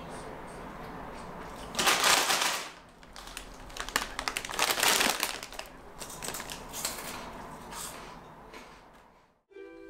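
Foil crisp packet rustling and crinkling in several loud bursts as a hand rummages inside it. Plucked ukulele notes start just before the end.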